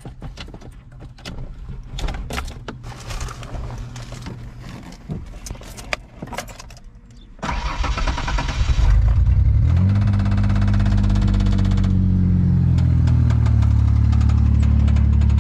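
1992 Ford Ranger's 3.0L Vulcan V6 being started, heard from inside the cab. Clicks and handling noises for several seconds, then the starter cranks briefly about seven seconds in. The engine catches, revs up, and settles into a steady idle.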